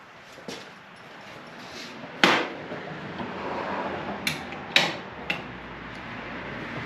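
Hand tools clanking on metal while the front axle pinch bolt is taken out with an Allen key and a wrench: a few sharp metallic clanks, the loudest about two seconds in and three more close together around the five-second mark.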